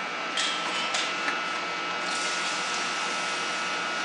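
Water on a hot, freshly arc-welded bushing, sizzling as it turns to steam. Two brief hisses come near the start, then a steadier hiss from about two seconds in.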